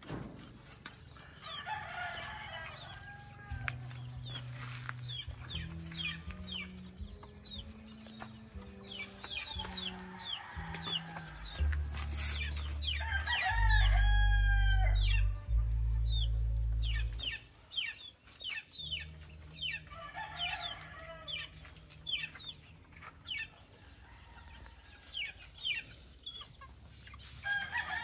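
Gamefowl roosters crowing several times, with young chickens peeping and clucking in between. Low, stepping notes of background music run underneath, loudest about halfway through.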